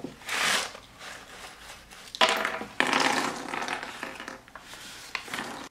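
Paper seed packet rustling as dried broad beans are tipped out of it onto a wooden tabletop, with a denser rattle partway through and a few light clicks of beans landing near the end.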